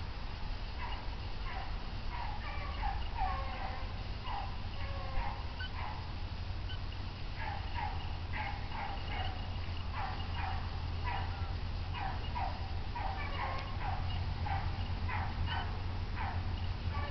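A pack of beagles baying while running a swamp rabbit's track, with short bay notes from several hounds overlapping almost without a break. The notes thin out for a moment around the middle.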